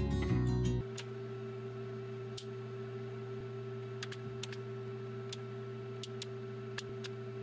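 Background music cuts out about a second in, leaving a steady electrical hum with light, sharp clicks at uneven intervals, about a dozen in all.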